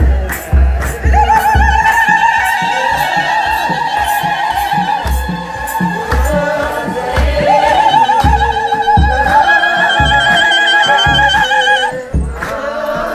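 Group singing in a church procession, with long, high, wavering voices held for several seconds at a time, over irregular low thumps.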